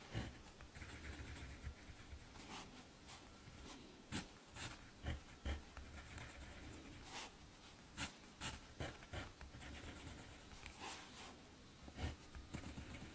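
Pen writing music notation by hand on manuscript paper: short, irregular scratches and taps as noteheads, stems and sharps are drawn.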